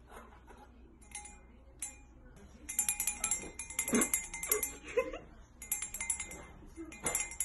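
Small metal bell jingling in repeated short bursts as a cat knocks it about.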